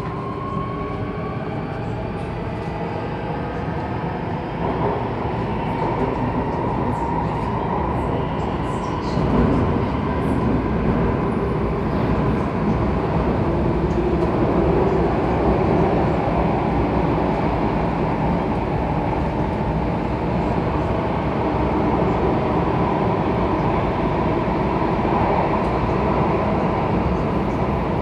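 SMRT C830C Alstom Metropolitan metro train accelerating away from a station, heard from inside the carriage. Its traction motors give a rising whine in the first seconds, which fades into the steady rumble of the train running on the rails. The rumble grows louder from about nine seconds in.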